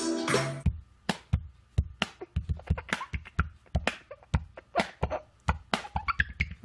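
Quick, uneven taps of an adult's fingers on a baby's cheek, each a short pop, a few a second. Backing music cuts off just under a second in.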